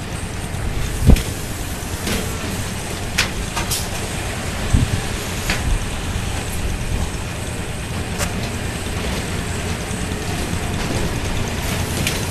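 Sandbag-unloading conveyor machine running with a steady low mechanical rumble. Sharp clicks come through now and then, with a heavier thump about a second in and another a little before five seconds.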